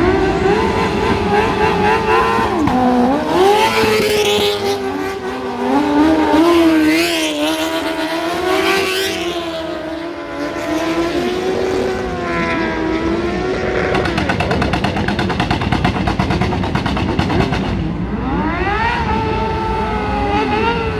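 Drift motorcycle engines revving hard, their pitch swinging up and down again and again as the throttle is worked.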